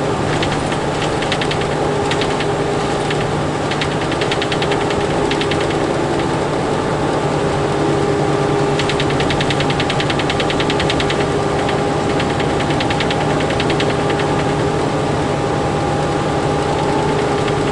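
Inside the cab of a Freightliner semi truck on the road, the engine and road noise drone steadily. Over it, something in the back of the cab rattles rapidly in repeated bursts, the longest lasting a couple of seconds. The driver has not found the source; he has already ruled out the sleeper drawer by taking it out.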